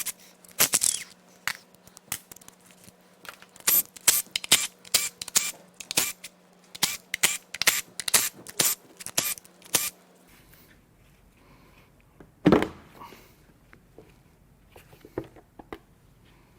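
Irregular sharp metal clicks and clinks of hand tools and fasteners as the valve cover is unbolted from a BMW S52 straight-six engine, then one heavier knock after a pause.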